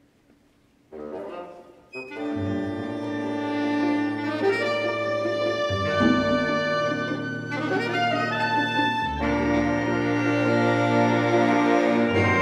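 Orchestra of strings, saxophones, clarinets and brass starting the opening of a calypso-style piece: a soft entry about a second in, then the full ensemble comes in at about two seconds and plays on with sustained chords and moving lines.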